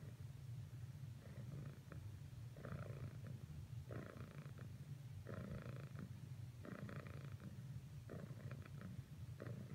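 Domestic cat purring: a steady low purr with a louder, rougher swell about every second and a half, one per breath.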